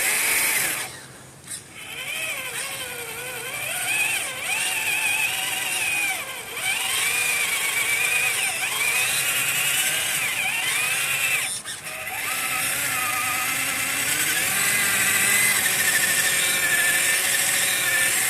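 TRX4 RC crawler's electric motor and drivetrain whining, the pitch rising and falling as the throttle is worked, with the wheels spinning in deep, sticky mud: the truck is stuck. The whine drops out briefly about a second and a half in and again near twelve seconds.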